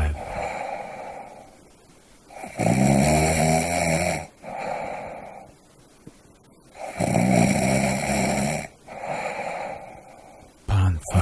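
A sleeping person snoring: loud, rattling snores about four seconds apart, each with a softer breath after it. A third snore starts near the end.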